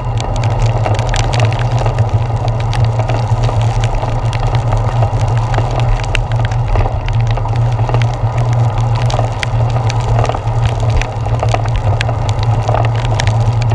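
Rain pattering and ticking on a handlebar-mounted GoPro Hero 4 camera as a bicycle rides through heavy rain, many small sharp clicks over a steady low rumble of wind and wet-road noise.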